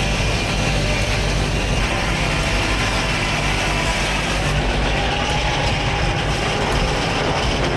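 Old-style sawmill with a large circular blade sawing a log on a moving carriage: a steady, loud cutting noise over the low hum of the belt-driven machinery. About four and a half seconds in, the cut finishes and the high hiss of blade in wood falls away while the machinery keeps running.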